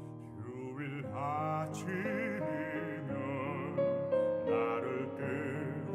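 Recorded classical-crossover song: a baritone singing with vibrato over piano accompaniment, the voice coming in about a second in.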